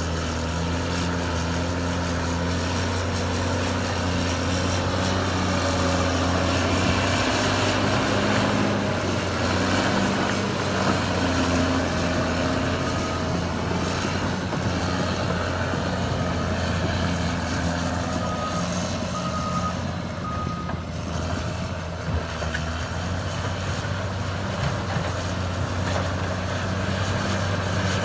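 Caterpillar D6R2 bulldozer's diesel engine running steadily under work, with a backup alarm sounding a few short beeps around the middle.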